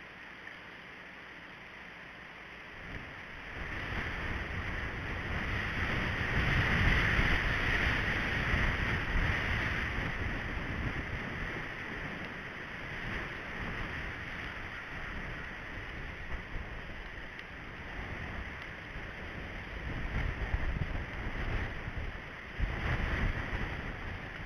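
Wind gusting across an outdoor microphone: a rumbling hiss that comes up about three seconds in, is strongest a few seconds later, and swells again near the end.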